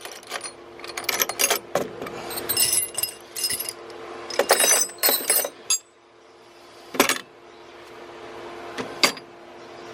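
Steel chisels and punches clinking against each other and the metal tool-chest drawer as they are put back, in ringing clusters for about six seconds. Then two sharp metal knocks, about seven and nine seconds in.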